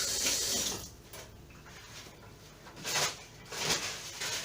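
Kitchen tap water running as hands are washed, shutting off about a second in, followed by a few short rustling handling noises.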